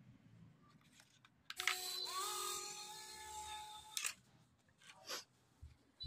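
Tiny coreless DC motor of a remote-control paper plane spinning its plastic propeller. It starts about one and a half seconds in with a high whine that rises in pitch, runs steadily over an airy rush for about two seconds, then cuts off. A few faint clicks before and after.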